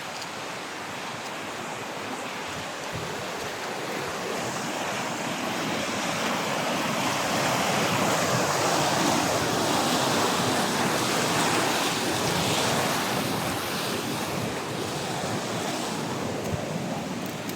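Rushing river water: a steady hiss that grows louder toward the middle and eases off near the end.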